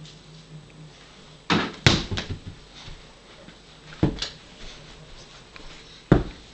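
Small toy basketball bouncing on carpet. There is a cluster of thuds about a second and a half in, another bounce about four seconds in, and a single sharp thud just before the end.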